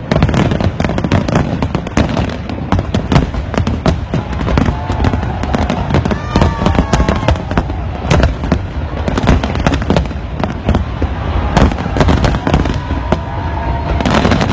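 New Year fireworks display: shells bursting in rapid, continuous succession, sharp cracks over a rolling low rumble of booms.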